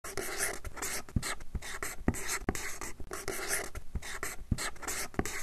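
Handwriting sound: quick, scratchy strokes of a pen on a surface as letters are written out, with brief gaps and small clicks between the strokes.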